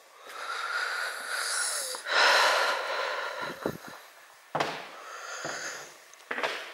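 A person breathing heavily close to the microphone: two long, noisy breaths over the first three and a half seconds, then a fainter one, with a few short knocks in between.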